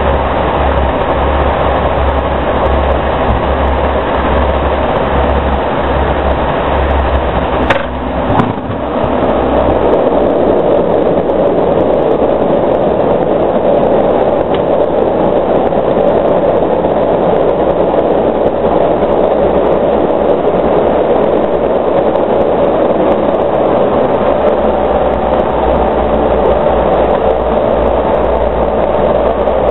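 Steady cabin drone of a de Havilland Canada Dash 7's four Pratt & Whitney PT6A turboprops, heard from the cockpit as the aircraft rolls along the runway and taxis. A brief knock comes about eight seconds in, with a momentary dip in the noise.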